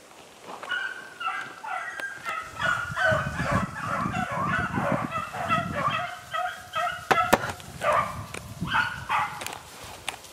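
A pack of beagles baying in full cry on a running swamp rabbit. Several hound voices overlap in a continuous chorus that eases off near the end.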